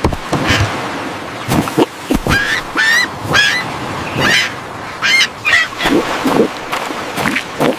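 A bird's voice giving a quick run of short calls, a dozen or so, some rising in pitch, with sharp clicks and knocks in between.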